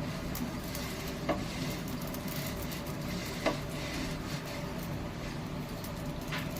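Pav buns roasting in butter on a hot tawa: a steady, quiet sizzle under a faint hum, with three light taps about a second in, midway and near the end.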